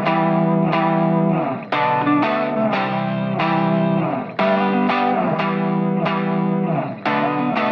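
Background music: an electric guitar with effects playing sustained chords in a phrase that repeats about every two and a half seconds.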